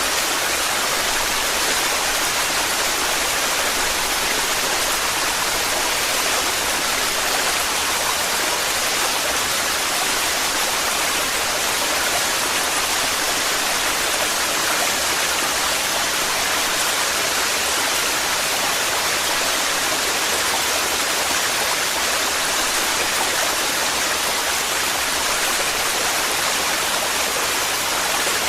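Torrential waterfall, a steady roar of falling and rushing water with no change.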